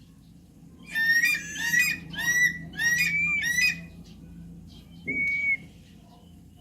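Javan pond heron calling: a quick run of four high, squeaky calls, then a single flat call about a second and a half later.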